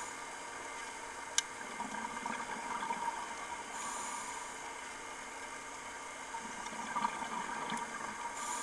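Underwater sound of a scuba dive: a steady hiss of water against the camera housing, with the short hiss of a diver's regulator inhalation about every four seconds, and one sharp click about a second and a half in.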